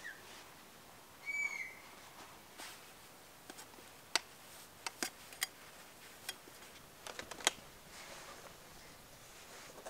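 A Canada jay gives one short, soft whistled note that rises and falls, about a second in. Scattered sharp clicks and ticks follow over the next several seconds.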